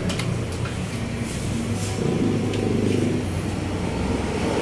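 Steady low motor rumble, with a few short sharp clicks in the first half-second.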